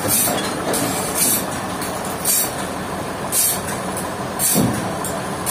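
Sawmill machinery running steadily, with a short hiss repeating about once a second.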